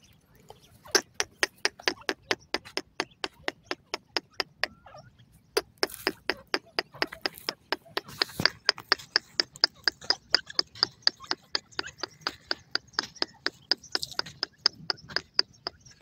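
Grey francolin giving a rapid run of sharp clicking call notes, about five or six a second, breaking off briefly near the third second and then going on steadily to the end.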